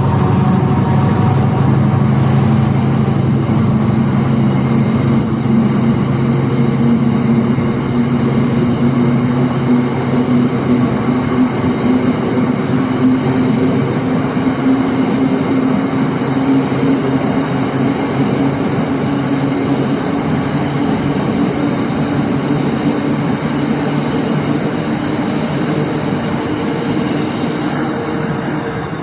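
Colas Rail Class 70 diesel-electric freight locomotive running under power as it passes, its engine drone fading away over the first ten seconds or so. The steady rumble of the freight wagons rolling along the rails follows, easing off near the end.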